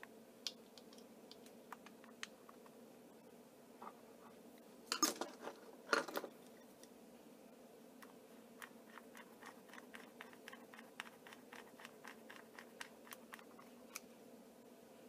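Small jeweler's screwdriver driving tiny screws into a plastic model diesel locomotive: faint clicks and scratches, two louder bursts of handling clatter about five and six seconds in, then a run of quick light ticks in the second half as a screw is turned.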